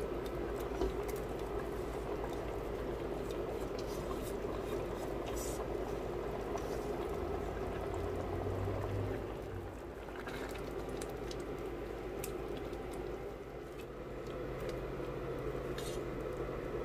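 Pot of red lentil soup bubbling at a steady boil while a silicone spatula scrapes tomato-onion mixture off a nonstick frying pan into it and stirs, with scattered light clicks and scrapes. A low hum comes in for a few seconds about halfway and again near the end.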